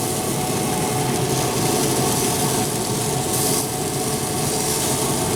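Weber SmokeFire pellet grill running hot: a steady fan hum under an even hiss from the fire and the cooking chicken.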